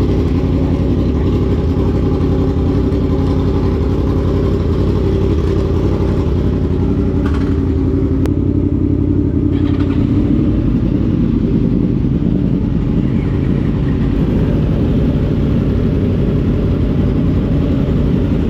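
Several Yamaha sport motorcycles idling together, a steady, loud, low engine sound.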